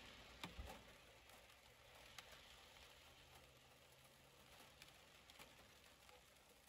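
Faint patter of light rain on window glass, with a few separate drops ticking.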